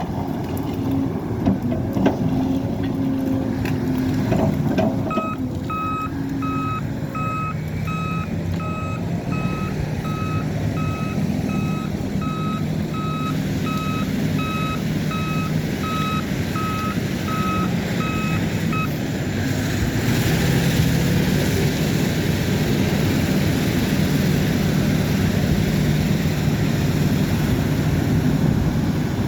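Diesel engine of an earthmoving machine running steadily, with its backup alarm beeping at an even pace for about fourteen seconds before it stops. A few knocks come early on, and in the last third the engine gets a little louder with a hiss over it.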